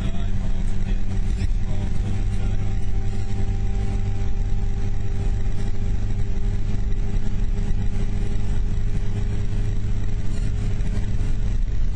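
Car cruising at a steady motorway speed, heard from inside the cabin: an even engine drone over tyre and road noise.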